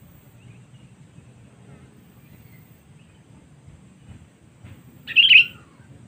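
Sooty-headed bulbul giving one short, loud call near the end, over a few faint chirps.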